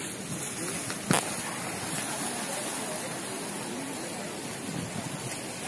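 Steady rush of sea waves and wind against the seawall, with faint distant voices and one sharp knock about a second in.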